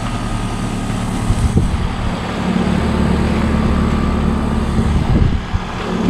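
Carrier Comfort heat pump outdoor unit running in heat mode: a steady compressor hum under the rush of its condenser fan. A few brief thumps about a second and a half in and again near the end.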